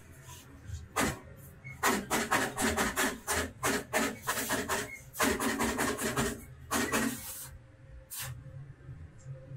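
Electric arc welder tack-welding steel wire rods: a series of short crackling bursts of the arc, each a second or less, busiest from about two to seven and a half seconds in.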